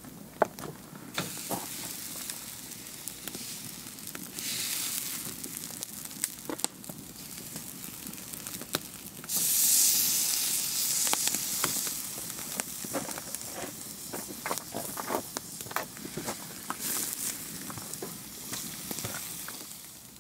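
Wood fire crackling under a barbecue grill, with swells of sizzling as raw marinated pork ribs are laid on the hot grate. The loudest sizzle comes about nine seconds in and lasts a few seconds.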